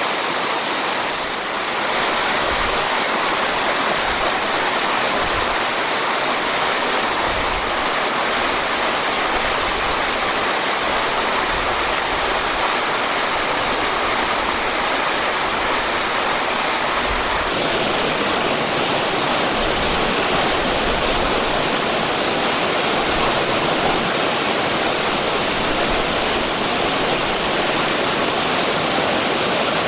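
A mountain waterfall and stream: water rushing loudly and steadily.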